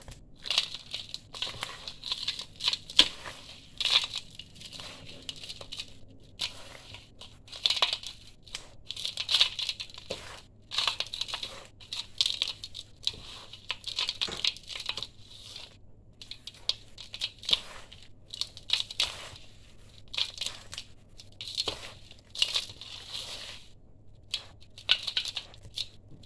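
Dry, crunchy sand-cement mix being crushed between fingers and let fall into a stainless steel bowl: gritty crunching and trickling in repeated bursts about once a second, with now and then a sharper crack.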